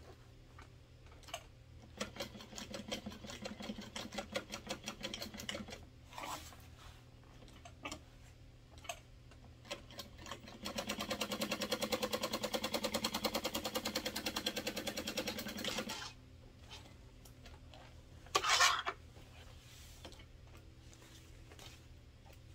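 Juki industrial sewing machine stitching a seam in waterproof canvas: a few short stop-start runs of stitching, then one steady run of about five seconds. One short louder noise comes a little later.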